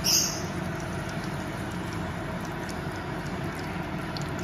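Ghee heating in a nonstick kadai over a lit gas burner: a steady hiss over a low rumble, with a brief sharper sizzle right at the start.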